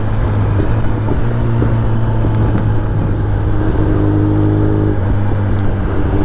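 Kawasaki ZX-10R inline-four engine running at a steady note while the bike is ridden, with some higher engine tones joining for about a second past the middle.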